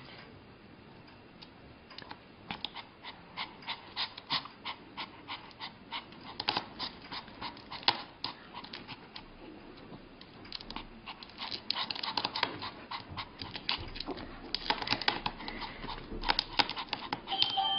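A dog panting in short, rhythmic breaths, about two or three a second, growing busier and louder in the second half.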